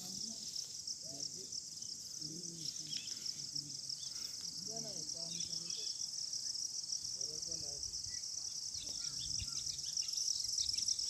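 Steady, high-pitched chorus of chirring insects, typical of crickets, going on without a break. Faint low voices murmur underneath.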